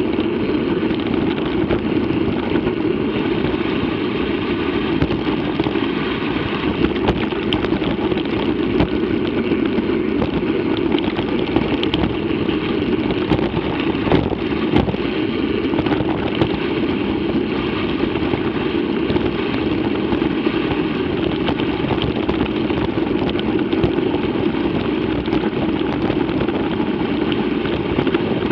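A mountain bike rolling over a dry dirt track: a steady rushing of wind on the camera's microphone and tyre noise, with scattered clicks and rattles from the bike.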